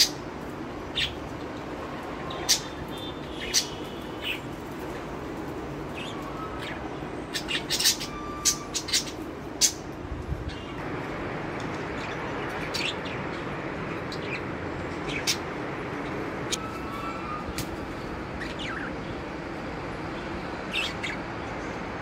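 Caged budgerigars giving short, scattered chirps, with a quick run of several chirps about a third of the way through, over steady background noise.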